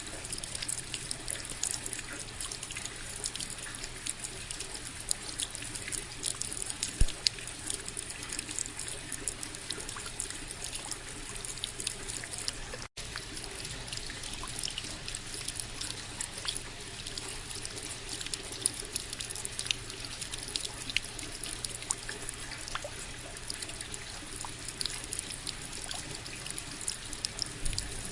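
Steady rain falling: an even hiss dotted with many small drop ticks, broken by a split-second gap about halfway through.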